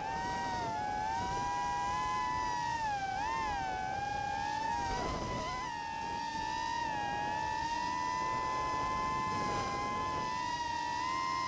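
Racing quadcopter's Cobra 2204/2300kv brushless motors and propellers whining, the pitch dipping and rising as the throttle changes and holding steadier in the middle, heard through the onboard camera with a rushing noise underneath.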